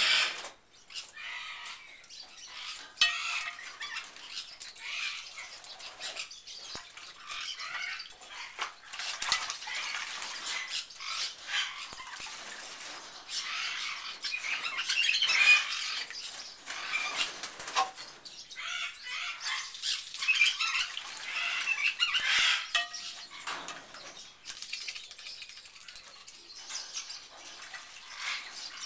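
Channel-billed toucan bathing in a water bowl: repeated bouts of splashing and wing-flapping in the water, broken by short pauses.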